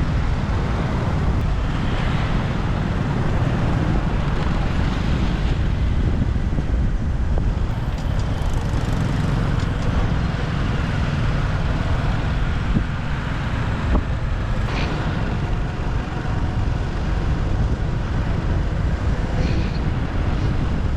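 Steady motorbike riding noise in city traffic: heavy wind rumble on the microphone over the bike's engine and surrounding traffic, with a couple of brief sharp knocks about two thirds of the way through.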